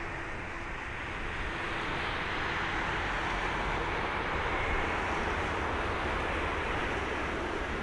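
Boeing 747-400 freighter's four turbofan engines on the landing rollout just after touchdown, a steady rushing noise that grows louder about a second and a half in and stays up.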